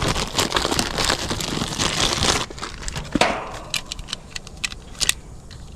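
Hard start kit being handled: crinkling and rustling for about two and a half seconds, then a few scattered clicks and taps.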